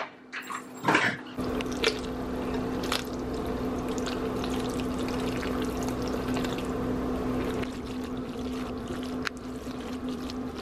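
Water running steadily from a kitchen faucet, starting about a second in, with a few light clinks and a low steady hum underneath.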